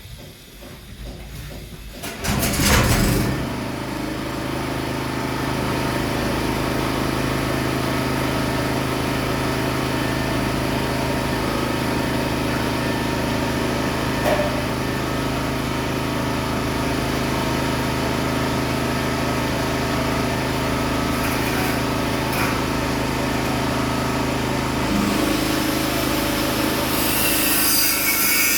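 A power tool starts up about two and a half seconds in and runs steadily at a constant pitch. Near the end a harsh, hissing rasp joins it as it begins cutting into material.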